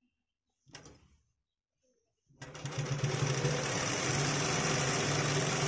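Bharat sewing machine starting about two seconds in and running steadily at speed, stitching through trouser fabric.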